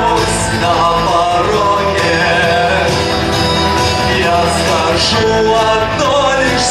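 A song: a solo voice singing a melody over loud backing music.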